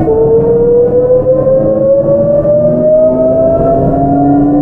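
Toshiba GTO-VVVF inverter and traction motors of a 681-series motor car whining under power as the train accelerates. The pitch jumps suddenly to a new note right at the start, as the inverter changes its pulse pattern. The whine then rises steadily with speed, over the running noise of the car.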